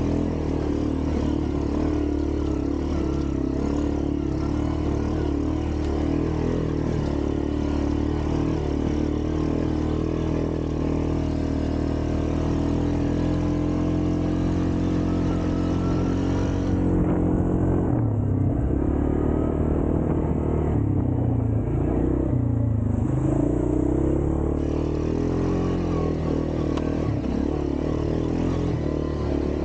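ATV engine running, its pitch dipping and climbing again several times past the middle of the stretch as the throttle changes.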